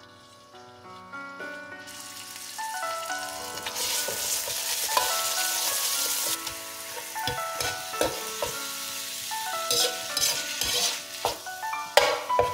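Ground beef sizzling in hot oil in a pan, building to a strong sizzle a few seconds in. Then a metal utensil knocks and scrapes against the pan over and over as the meat is broken up and stirred, with the frying going on underneath.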